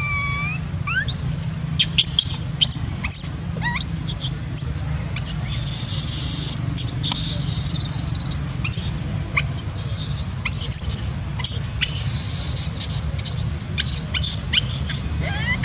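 Baby long-tailed macaque crying: a string of short, high-pitched squeals that rise and fall, repeated again and again over a steady low hum. It is a baby's distress cry for milk that its mother has none of.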